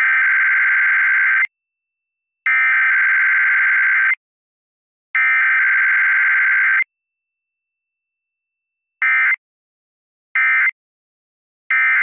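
Emergency Alert System SAME digital data bursts for a Required Weekly Test: three long identical bursts of data tones, each about a second and a half with a second's pause between, then three short end-of-message bursts about a second and a half apart.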